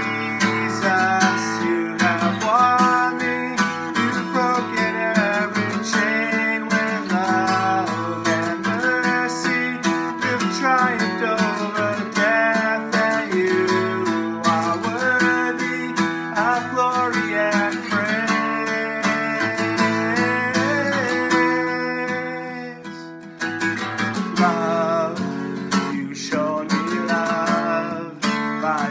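A man singing a worship song, accompanying himself by strumming an acoustic guitar.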